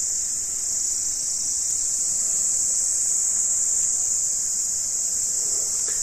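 A dense chorus of insects making a steady, unbroken, high-pitched drone.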